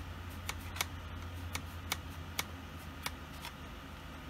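Late 2008 aluminum MacBook's cooling fan running with a steady low hum while the machine works through a macOS install. Light, irregular clicks sound over it as a CD is handled against the desk.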